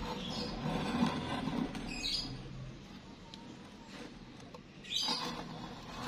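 A steel gate wheel and its bracket handled against a square steel tube: metal rubbing and scraping, with short high squeaks about two seconds in and again about five seconds in.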